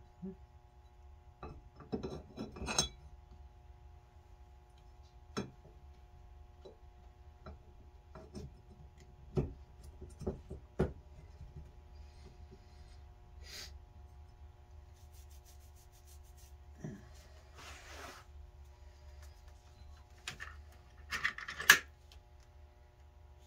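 Small metal carburetor parts being handled: scattered light clicks, taps and short scrapes against the carburetor body and a metal parts tray, with the loudest clatter near the end, over a faint steady hum.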